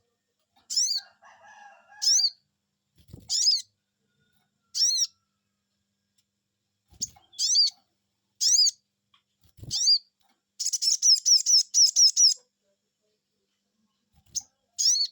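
Sogon bird giving its 'cuiit cuiit' call as a lure to draw other sogon birds to answer. Short high-pitched phrases repeat about every second or so, with a rapid run of about a dozen notes about two-thirds of the way through. A few faint low thumps sound between the calls.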